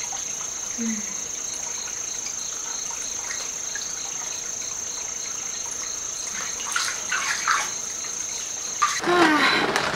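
A steady high insect trill runs on. Bath water sloshes briefly about seven seconds in as the bather shifts in the tub. The trill cuts off near the end and a voice takes over.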